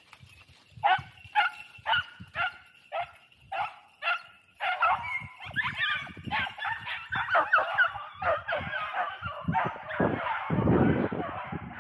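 Beagles baying in full cry. A single hound yelps about twice a second at first; after about four and a half seconds several more join and the calls overlap as a pack. Near the end there is crunching through dry leaves.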